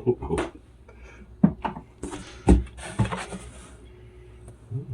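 Parts and packaging handled while a 3D printer kit is unpacked: a few sharp knocks as pieces are picked up and set down, and a rustle of packaging about two seconds in.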